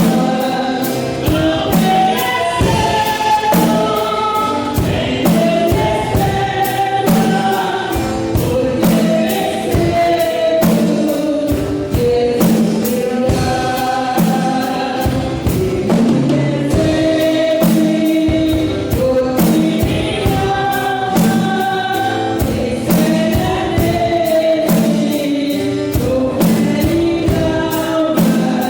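Gospel song with choir singing over a steady drum beat, the snare drum low in the mix.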